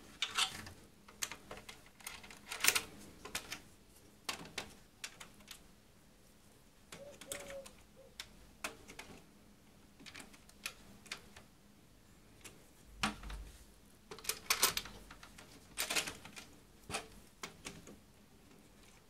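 Irregular sharp plastic clicks and knocks as a comb busbar is pushed onto the terminals of a row of DIN-rail circuit breakers by hand, with a dull knock about two-thirds of the way through.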